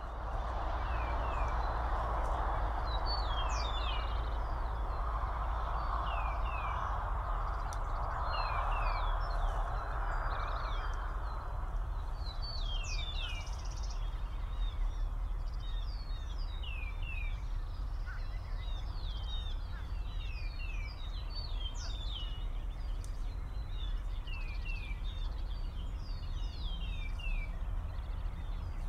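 Small birds chirping again and again: short, quick notes that slur downward. Under them is a steady low hum. A broad hiss fades out about ten seconds in.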